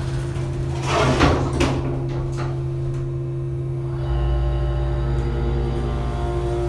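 Cab doors of an Otis hydraulic elevator sliding shut with a brief clatter about a second in, then about four seconds in the hydraulic pump motor starts, a deeper steady hum with several tones stacked above it, as the car begins to rise.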